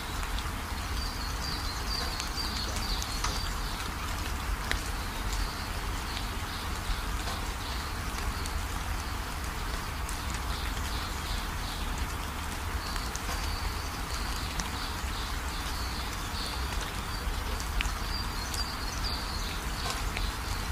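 Outdoor garden ambience: a steady hiss over a low rumble, with a high chirping trill that comes and goes in runs of a second or two.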